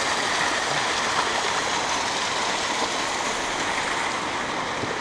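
A river rushing in a steady, even wash of moving water.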